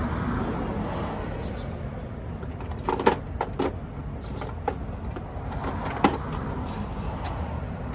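Metal hand tools clinking as wrenches and sockets are handled: a few sharp clinks about three seconds in, a couple more after, and a louder one about six seconds in, over a steady low outdoor rumble.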